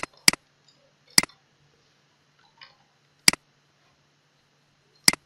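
Computer mouse clicking: about five sharp single clicks at irregular intervals, the first two in quick succession.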